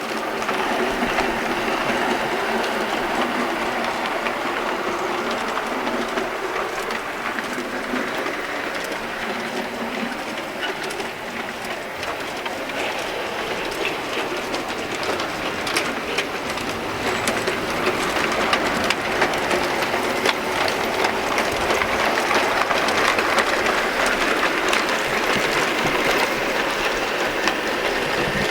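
G gauge model train running on its track: a steady whirr of the electric motor and gearing, with light clicks from the wheels on the rails.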